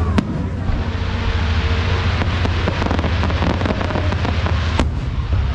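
Fireworks going off: two sharp bangs about four and a half seconds apart, with a dense crackling between them, over a steady low rumble.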